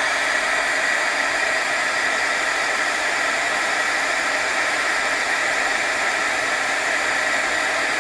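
Embossing heat gun blowing steadily, melting embossing powder on a paper-covered button: an even rush of hot air with a faint steady whine from its fan motor.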